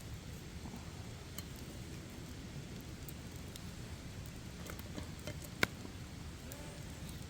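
Wood campfire crackling: a steady low rush with scattered sharp pops, one louder pop a little past halfway.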